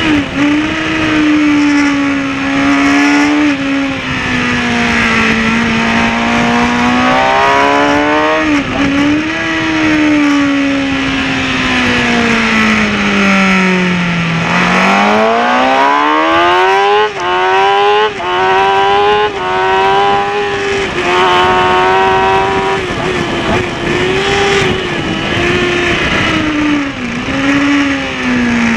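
Kawasaki ZX-6R's inline-four engine heard onboard at racing speed. The revs fall steadily to a low point about halfway through as the bike slows into a corner, then climb again through several quick upshifts and hold high, easing off again near the end.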